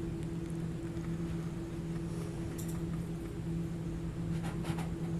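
Steady low hum of room tone, with a few faint scratchy strokes of a paintbrush on canvas about halfway through and again near the end.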